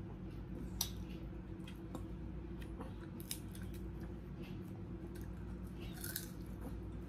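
Crisp fried tuyo (dried salted fish) being broken apart by hand and bitten: a few sharp crunches about 1, 3 and 6 seconds in, with smaller crackles between, over a steady low hum.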